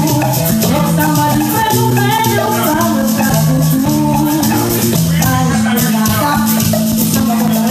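Live band playing: a woman singing into a microphone over electric bass, electric guitar and drums, with a steady, evenly ticking high percussion beat.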